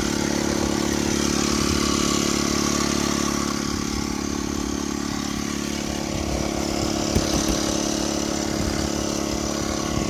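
Outwell Windstorm 12 V electric tent pump running with a steady hum as it pushes air into the tent's inflatable beams, still short of its set pressure. Wind buffets the microphone.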